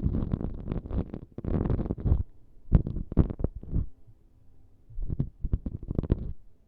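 ASMR props rubbed and scratched right against the microphone, which picks up deep, muffled thumps of handling under the crackle. It comes in three bursts of rapid scratchy strokes with short pauses between.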